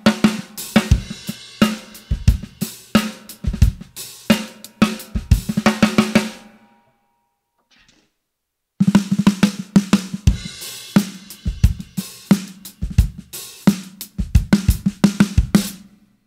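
Drum kit groove of snare, kick and hi-hat on a 14x6.5 Gretsch Full Range walnut snare muffled with Big Fat Snare Drum dampeners, giving a low, beefy snare tone. It is played twice, with a pause of about two seconds near the middle: first with the donut-shaped pad, whose centre hole keeps the stick's attack on the drum head, then with the full-cover pad, which changes the attack as well.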